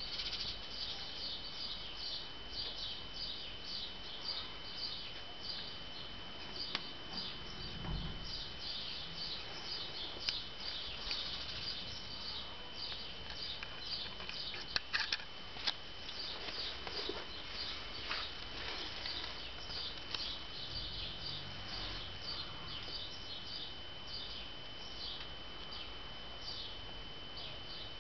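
Small birds chirping in quick, continuous short calls, over a steady high whine, with a few sharp clicks about halfway through.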